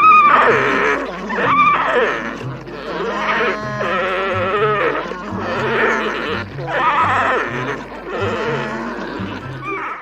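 Alpacas calling: a string of loud, long, wavering cries, one after another. Children's background music with a steady bass line plays underneath.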